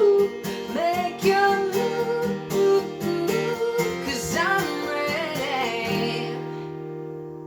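Guitar strummed in a steady rhythm while a woman sings a wordless vocal line that slides in pitch. The strumming stops and a final chord is left ringing and fading out near the end: the close of the song.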